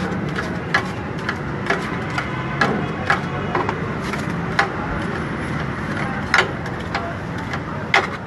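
Metal spatulas clinking and scraping on a flat-top steel griddle as chicken pieces are chopped and turned, in irregular sharp clinks over a steady hiss and low hum.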